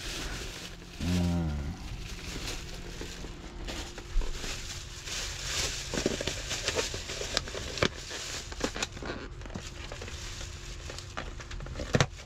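Thin plastic carry-out bag rustling and crinkling as takeout is unpacked, with irregular clicks and taps from a clear plastic clamshell food container. A man gives a short hum about a second in.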